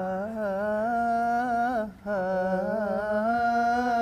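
Male voice singing a cappella on a wordless 'aah', holding two steady notes of about two seconds each with a short break between them: the base layer of a nasheed vocal arrangement.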